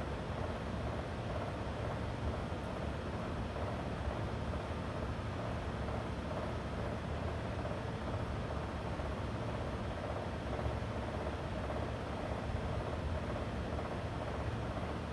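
Electric fan running steadily: an even hum and rush of moving air, with a slight slow wavering in its tone.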